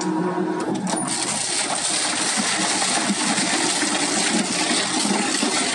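Crushing machine running: a steady hum, then about a second in a harsh, dense grinding noise takes over and carries on.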